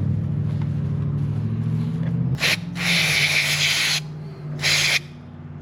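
Aerosol electronics cleaner sprayed in bursts into a motorcycle turn signal switch assembly: a short hiss, a longer one of about a second, then another short one, cleaning out dried grease and gunk. A steady low hum runs under the first half.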